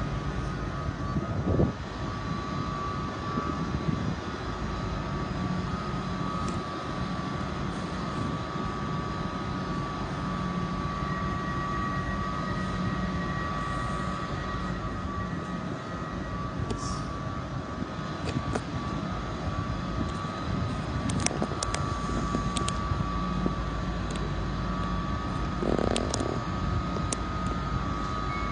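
Stationary passenger trains at a station platform, a Class 755 unit among them, giving a steady hum with high-pitched whining tones. A few sharp clicks and knocks cut through it, the loudest a thud near the end.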